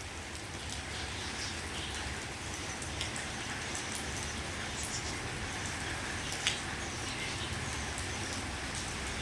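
Steady rainfall, with scattered individual drops ticking sharply among the even hiss. One drip lands louder about six and a half seconds in.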